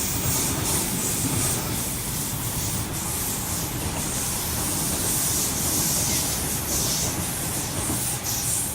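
Sydney Trains Waratah electric double-deck train passing underneath: a steady rumble with a high hiss of wheels on rails, dropping away sharply at the very end.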